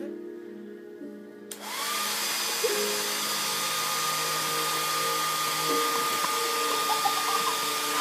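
A hand-held blow dryer switched on about a second and a half in, then blowing steadily, its thin motor whine rising briefly as it spins up and then holding steady over the rush of air.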